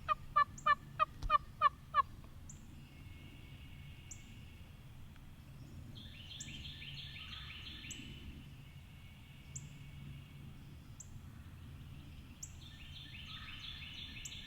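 Turkey yelping: a loud run of evenly spaced yelps, about four a second, that stops about two seconds in. Songbirds trill and chip faintly for the rest of the time.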